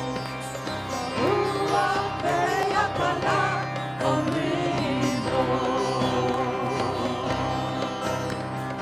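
Worship band playing an instrumental passage between sung lines: a melody line moving over sustained chords and a steady low note.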